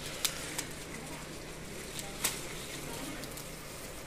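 Cut sugarcane being pulled out of its clump: sharp cracks of stalks and dry leaves, the loudest a quarter second in, another about half a second in, and a third a little past two seconds.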